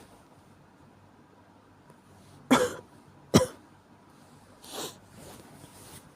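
A person with a cold coughing: two sharp coughs about a second apart, a little over two seconds in, followed by a softer breathy sound.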